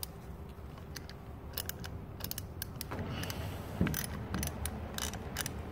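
Small hand ratchet with a Torx bit clicking in quick, irregular runs as the stator's mounting bolts are backed out.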